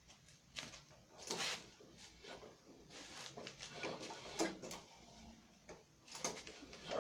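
Irregular knocks, clacks and rattles of objects being handled, a few of them sharper and louder, with rustling in between.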